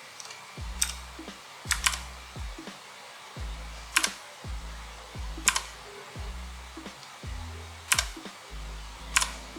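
Background music with a steady bass line, over which single mechanical keyboard keys click sharply now and then, about seven presses at irregular intervals, two of them in quick succession just before two seconds in.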